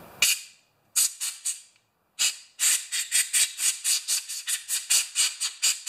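Compressed-air blow gun hissing in short blasts, blowing off cleaned carburetor parts: a few separate blasts at first, then, after about two and a half seconds, quick pulses about five a second.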